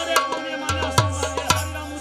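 Tabla and harmonium playing folk dance music: sharp tabla strokes about every half second, some with a low ringing bass-drum tone, over held harmonium notes.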